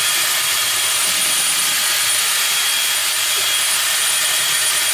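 Cordless drill running flat out with its trigger held all the way down, spinning a mixer beater through heavy whipping cream in a bowl. A loud, steady whirring hiss with a thin high whine over it, unchanging in speed.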